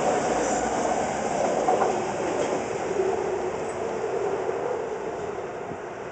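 BART trains pulling out of an underground station and running off into the tunnel: a rumble of wheels on rail with a whine that slides lower, fading as they go.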